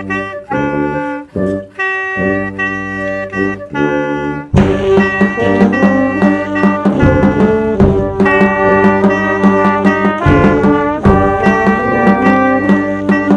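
A small multitracked wind band of clarinet, trumpet, French horn, euphonium, tuba, alto saxophone and flute, with snare and bass drum, playing a concert band piece. It opens with short, detached chords separated by brief gaps. About four and a half seconds in, the full ensemble comes in with held chords over steady drum strokes.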